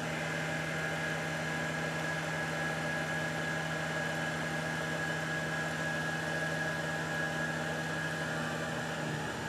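Tormach 8L CNC lathe spindle running at around 2500 RPM while a left-hand facing tool turns down the diameter of a brass bar in light passes: a steady machine hum with a high whine over it.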